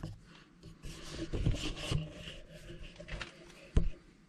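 Hand-handling noises of brake parts and tools being positioned on a disc brake caliper: rubbing and scraping with a few soft knocks, and one sharper knock near the end.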